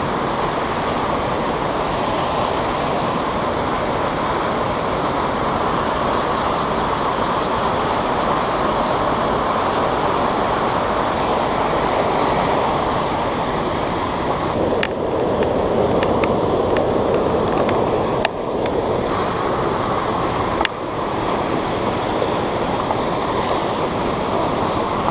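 Steady rushing of a creek tumbling over rocks in a small fall and riffle, close to the microphone. A few brief clicks come through about two-thirds of the way in.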